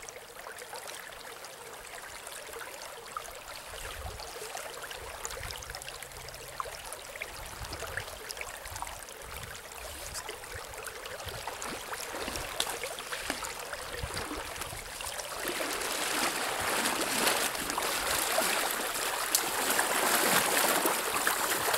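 River current running over a shallow riffle, a steady rush of water. It grows louder over the last several seconds, with water splashing around the legs of a person wading through the current.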